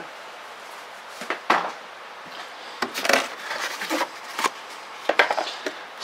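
Scattered knocks, clicks and scrapes as hard plastic model parts are handled and moved about in a cardboard box, at an irregular pace.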